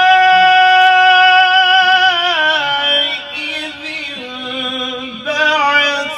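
A man's voice in melodic Quran recitation, held on one long high note for about two seconds. It then slides down in ornamented steps to a lower pitch and wavers there, a drawn-out melisma between words.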